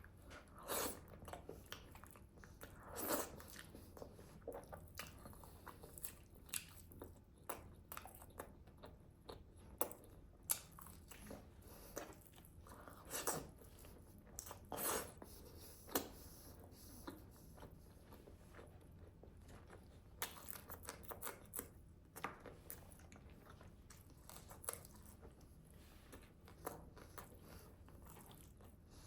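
Close-miked eating of grilled chicken: irregular biting and chewing with crunchy mouth sounds, and a few louder bites.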